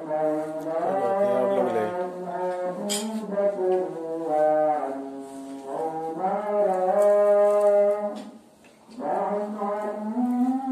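A man chanting an Islamic prayer in long, drawn-out melodic phrases with slow rises and falls in pitch and a short break about eight and a half seconds in. A brief click comes about three seconds in.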